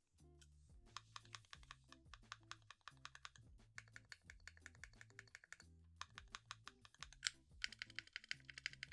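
Typing on a mechanical keyboard fitted with factory-lubed Zuoce Bubblegum linear switches: a run of key presses that becomes a fast, dense burst near the end.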